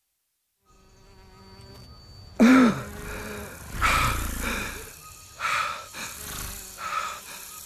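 Silence, then a faint forest ambience fading in, overlaid by several loud buzzing, insect-like creature calls. The first and loudest comes about two and a half seconds in, and the others follow at intervals of a second or so.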